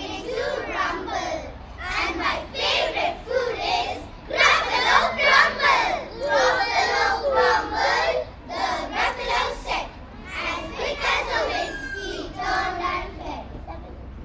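A large group of children reciting a poem together in unison, many voices chanting in short, loud phrases.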